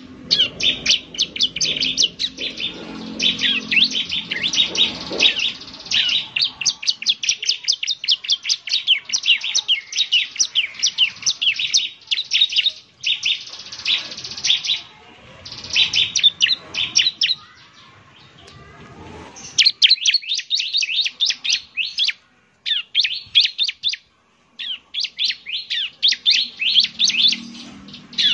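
Bar-winged prinia (ciblek) singing: rapid runs of short, sharp, high chirps in bursts, broken by brief pauses.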